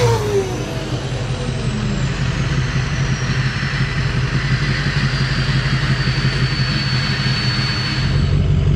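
An engine idling steadily, with a faint high whistle that slowly falls in pitch.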